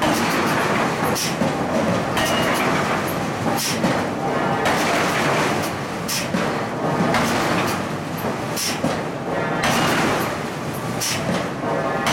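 Power forging hammer working a red-hot steel billet: a steady mechanical din broken by short hissing bursts about once every second or so.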